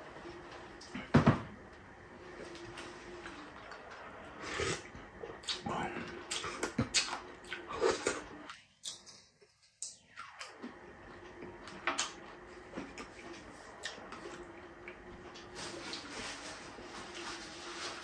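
Eating at a table: a loud knock of dishware about a second in, then scattered clicks and clinks of a spoon on a ceramic plate mixed with wet chewing and squishing of food. The sound drops out briefly just before the middle.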